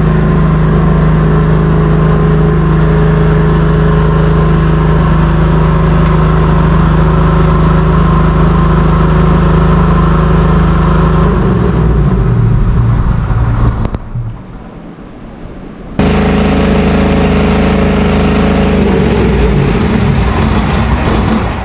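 A 10 kW diesel backup generator's engine running steadily. About 12 seconds in its note breaks up and dies away. After a quieter gap it cuts back in abruptly, then breaks up and fades again near the end.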